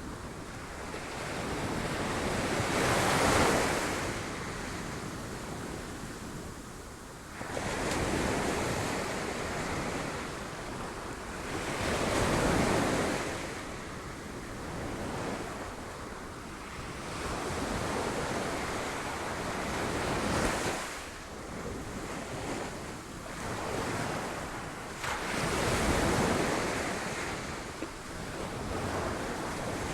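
Sea waves breaking against rocks, each surge swelling into a rush of surf and then washing back, in about five swells, the loudest about three seconds in.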